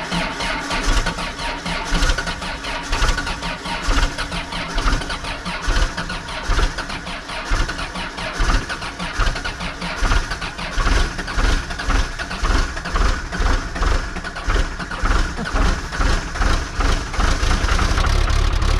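Diesel engine of a small excavator running, with a steady rhythmic pulsing in the low end; it grows louder and deeper near the end.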